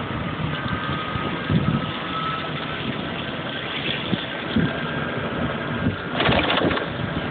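Road and wind noise of a DK City DBX electric motorcycle being ridden along a street, a steady rumble and hiss with a louder rush of noise about six seconds in.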